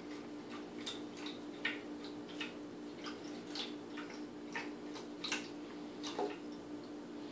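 Cat lapping water from a Drinkwell Platinum pet fountain, soft irregular clicks about one or two a second. Under them runs the fountain pump's steady low hum.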